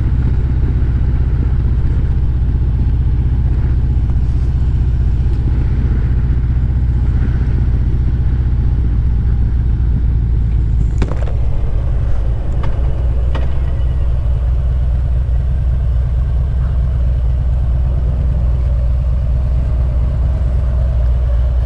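Harley-Davidson Road Glide Special's V-twin engine running steadily at low revs through Rinehart slimline true-dual exhausts, with no revving. A single sharp click comes about halfway through.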